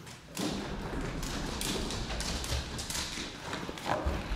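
Running footsteps, a quick irregular series of thuds and taps on a hard floor.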